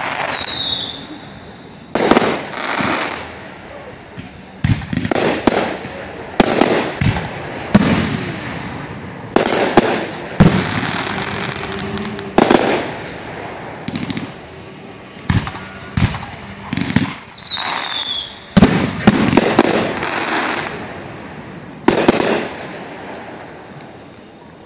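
Fireworks display: a steady run of loud shell bursts, many trailing off in crackle. A falling whistle is heard at the start and again about two-thirds of the way through.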